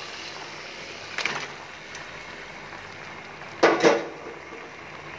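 Boiled taro stems and leaves being tipped from a steel bowl into a cooking pan, with the metal bowl knocking against the pan: a short knock about a second in, then two louder knocks in quick succession near four seconds.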